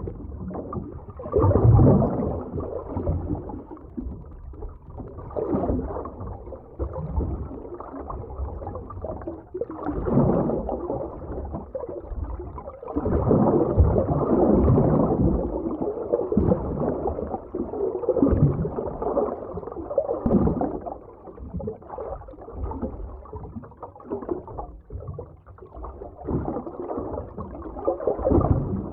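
Muffled underwater ambience: low rushing water and bubbling that swells and fades every few seconds.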